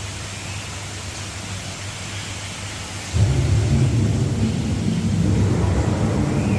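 A steady hiss, then a loud low rumble that starts abruptly about three seconds in and keeps going.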